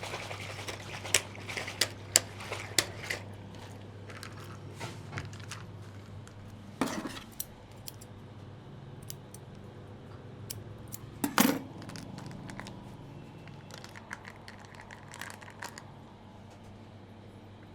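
Scattered sharp clicks and light taps, irregular and not rhythmic, thickest in the first few seconds. Two louder brief rustling scrapes come about seven and eleven seconds in, over a low steady hum.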